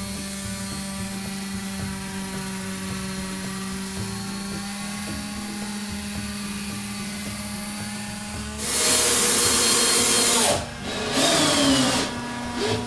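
Electric orbital sander running steadily on a pine bench board. About two-thirds of the way in, a power drill cuts in loudly twice, the first run about two seconds and the second about one, each ending as the motor winds down.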